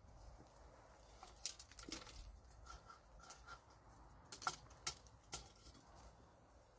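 Faint, scattered sharp clicks and light snaps over a quiet background, the last three about half a second apart.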